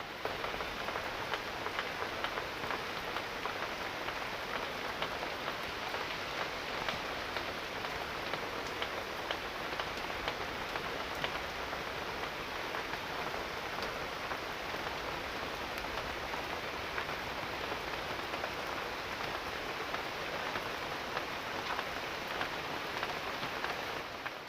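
Steady rain falling: an even hiss with faint, scattered ticks of individual drops.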